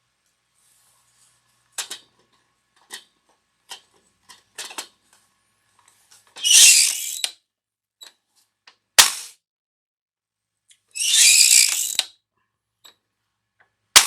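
Frankford Arsenal Pile Driver bullet puller being worked to pull the bullet from a .45 round: light clicks as the round is set in, then two rasping strokes of the mechanism, each about a second long, and two sharp metallic slams, one in the middle and one at the very end. The bullet is stuck, and it takes three tries to free it.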